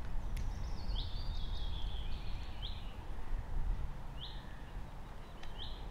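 A small bird calling with short high chirps, about six of them spread over several seconds, over a steady low outdoor background rumble.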